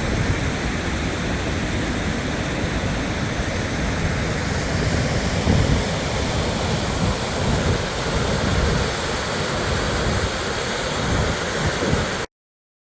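Steady rush of Gold Creek's water, with gusty low rumbling from wind on the microphone; it cuts off suddenly near the end.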